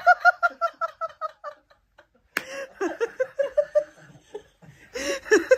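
Several young men laughing: a quick run of "ha-ha-ha" laughter fades out over the first second and a half. After a short pause a brief knock comes about two and a half seconds in, and more laughing and giggling follows.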